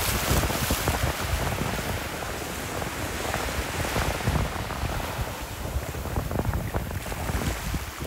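Small waves washing up onto a sandy beach and running back, with wind noise on the microphone.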